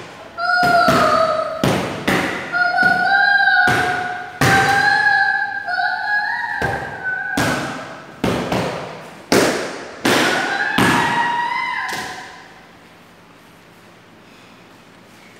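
Boxing gloves punching leather focus mitts: a dozen or so sharp smacks in quick combinations, stopping about twelve seconds in.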